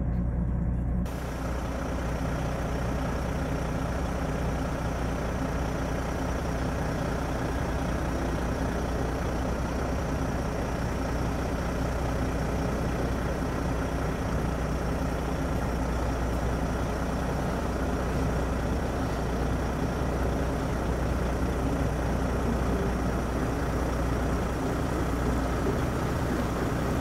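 Heavy lorry's diesel engine idling steadily, heard from inside the cab.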